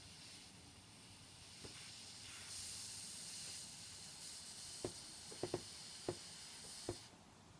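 Breath-filled balloon letting its air out through the neck in a steady hiss. The hiss grows stronger a couple of seconds in and cuts off suddenly near the end. A few light clicks come in the second half.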